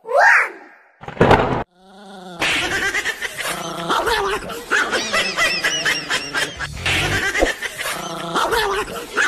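A short gliding sound effect and a brief loud hit in the first two seconds. Then continuous, rapidly repeating high-pitched laughter.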